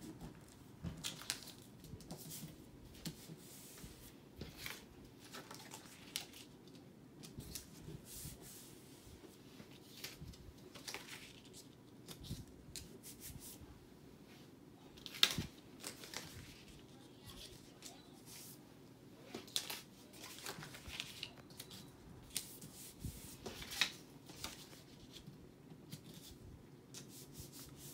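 Paper squares being handled and pressed flat against a wall by hand: faint scattered rustles and rubs, with a few sharper crackles, the loudest about halfway through.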